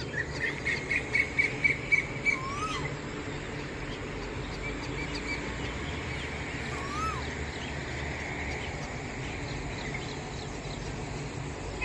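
Birds calling: a quick run of about ten sharp chirps in the first two seconds, then a short call that rises and falls, heard twice about four and a half seconds apart, over a steady low hum.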